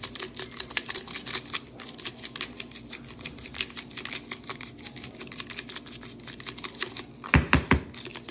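Shaker of coarse salt-and-black-pepper steak rub being shaken over raw steaks: a fast, even rattle of clicks, about seven a second. Near the end come two heavier knocks.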